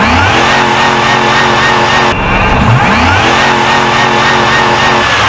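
Car engine revved by hand at the throttle linkage. The revs climb quickly twice, about three seconds apart, and are held high and steady in between.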